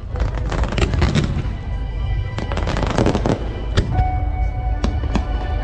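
Fireworks bursting: a dense run of sharp crackling bangs that thins out after about two seconds into separate bangs. Music plays along from about four seconds in.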